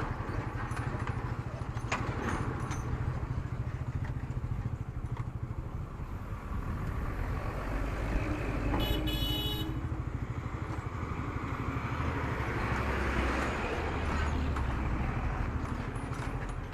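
Royal Enfield Meteor 350's single-cylinder engine running steadily under way, with road and wind noise. A brief high-pitched tone sounds about nine seconds in.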